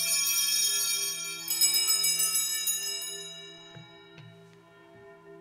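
Altar bells rung at the elevation of the host during the consecration: a bright jangling ring, shaken again about a second and a half in, then fading away by about three and a half seconds. A lower bell tone hums steadily underneath.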